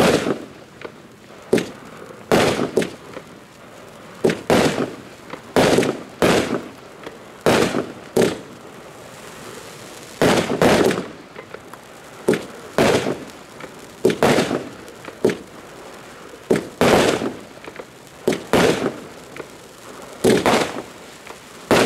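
Golden Eye firework battery (cake) firing shot after shot: sharp bangs about once a second, some coming in quick pairs.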